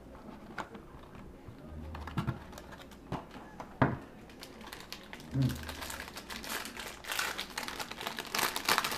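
Trading cards and their packaging being handled: a few light taps and knocks, then a stretch of crinkling and rustling from about six seconds in.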